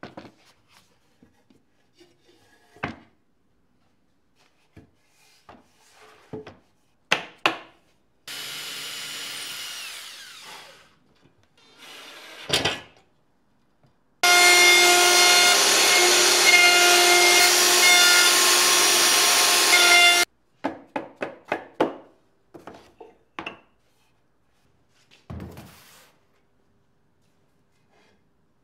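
Woodshop work sounds: scattered knocks and taps from a mallet and wooden parts, and a power tool running for a couple of seconds and fading about eight seconds in. Around halfway there is about six seconds of a cordless drill running with a steady whine, then a quick run of light knocks.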